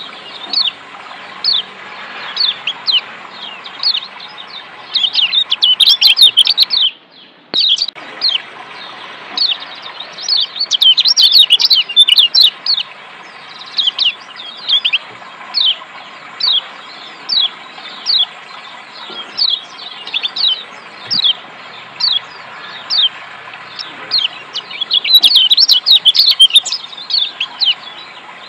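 Lombok yellow white-eyes (kecial kuning) giving rapid, sharp down-slurred 'ciak' chirps in repeated runs over a steady rush of running water. The sound cuts out briefly about seven seconds in.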